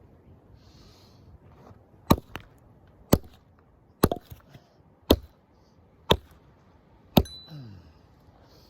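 A hand tool chopping into the ground, six sharp strikes about a second apart, as in digging clay soil with a mattock or pick.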